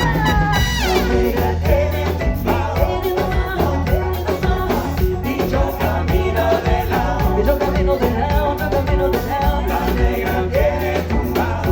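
Live Latin pop band playing an upbeat song with a steady beat.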